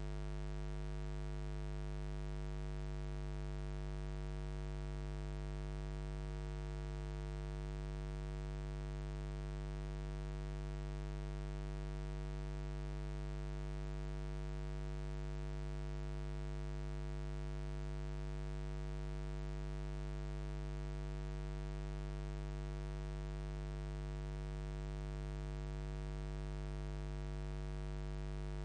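Steady electrical hum: a low buzz with a stack of evenly spaced overtones, completely unchanging, with nothing else heard over it.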